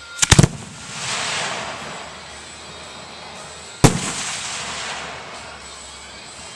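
Fireworks shells bursting: a quick cluster of three or four sharp bangs, then about a second of hissing crackle. A single loud bang follows a few seconds later, again trailed by a second or so of hiss.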